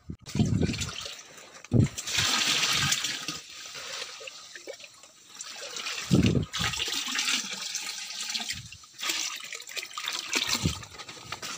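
Water pouring and splashing as a bag of vannamei shrimp fry is emptied into pond water, the rush swelling and easing several times, with a few short low thumps from handling.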